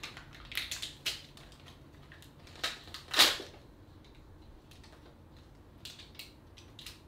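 Toy packaging being unwrapped by hand: scattered short crinkles and rips of paper and plastic, the loudest a sharp tear about three seconds in.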